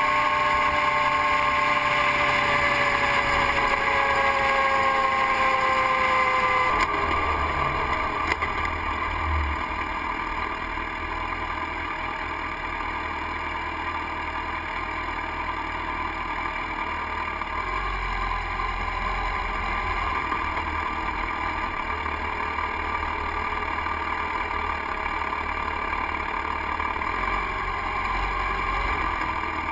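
Motorcycle engine and wind noise at highway speed, heard from a camera on the bike, with the engine note falling slowly as it decelerates. About seven seconds in, the sound cuts to a quieter, low engine rumble at slow speed.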